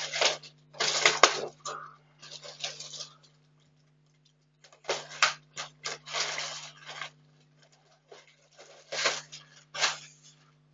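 Pink plastic packaging bag crinkling and rustling in irregular bursts as a laptop is handled inside it and slid out, over a faint steady low hum.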